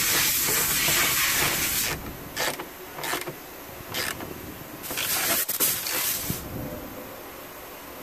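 A ratchet wrench with a socket working a tail-lamp retaining nut. A long rasping stretch is followed by several short bursts of ratcheting.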